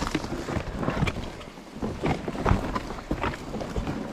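Footsteps on a steep path of loose rock and dirt, with plastic trash bags rustling against the camera and wind rumbling on the microphone. The steps and rustles come as irregular knocks, the loudest about two and a half seconds in.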